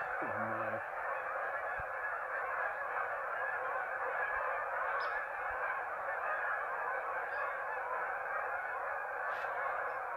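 A large flock of geese honking continuously in flight, many calls overlapping into one dense clamour as they leave the marsh.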